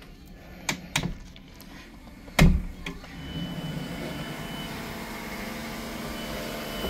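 Verandah sliding door being unlatched and opened: two sharp clicks of the latch, then a loud clunk about two and a half seconds in as the door is pulled open. After that comes a steady, louder rush of outside noise through the open door.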